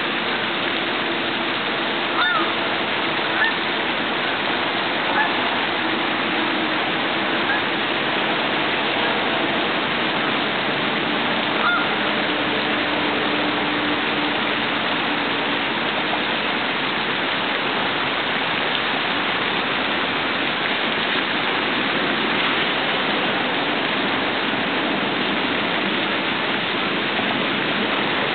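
Lake fountain spray splashing steadily, with geese honking about five times, briefly, in the first half.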